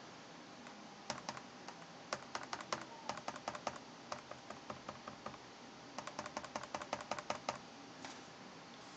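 Touchpad of a Lenovo ThinkPad Edge E320 laptop clacking under quick light taps, in two runs of about six to eight clicks a second with a pause between. The rattle comes from a touchpad left loose on its left side after a repair.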